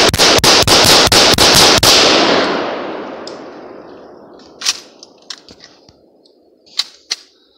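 Riley Defense RAK-47 rifle in 7.62×39 firing a rapid string of about nine semi-automatic shots, roughly four a second, emptying the magazine into a fire extinguisher. The shots give way to a hiss that fades over the next few seconds as the punctured extinguisher vents, with a few light clicks near the end.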